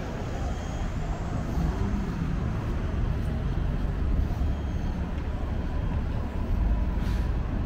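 City street traffic: a steady low rumble of passing cars and larger vehicles, with a brief hiss about seven seconds in.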